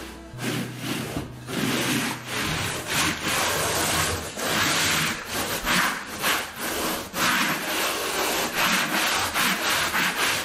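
A hand-held block rubbing back and forth over Schluter Ditra uncoupling membrane in repeated scraping strokes, pressing the sheet down to embed it in fresh thin-set mortar.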